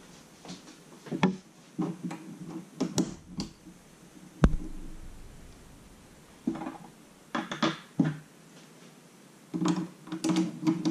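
Plastic pieces of a children's electricity play set being handled, set on a plastic base grid and snapped onto their metal studs: a string of irregular clicks and light knocks, the sharpest single click about four and a half seconds in.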